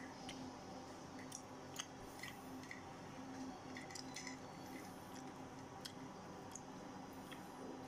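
Someone chewing food, with faint scattered clicks over a steady low hum.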